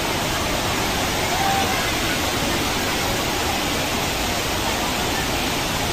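Steady rush of a waterfall in flood and the overflow water pouring across and over a concrete weir. Faint voices of people sound here and there.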